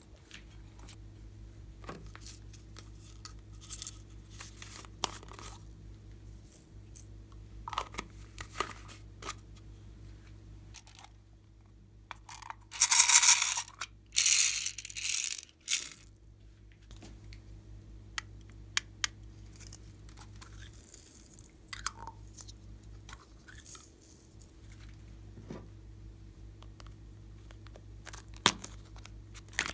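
Hands handling slime containers and add-ins over a glass tray of glossy slime: scattered small clicks, crackles and taps. About halfway through, while a heart-shaped box of plastic pearls is handled, comes a loud rattling rush lasting about three seconds. A sharp click near the end comes as a plastic slime container is opened, over a faint low steady hum.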